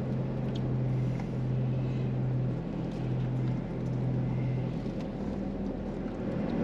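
Steady low vehicle engine hum heard inside a car's cabin, swelling and dipping slightly, with a few faint clicks.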